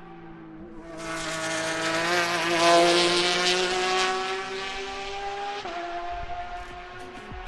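Porsche 911 RSR race car's engine held at high revs, climbing slowly. About a second in, a loud rush of air hiss and spinning tyres comes in, then eases as the revs drop near the end.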